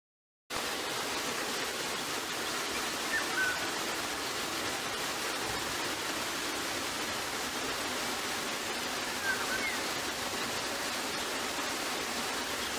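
Steady rushing noise, like running water, starting abruptly about half a second in, with a few faint short chirps around three seconds and again around nine seconds.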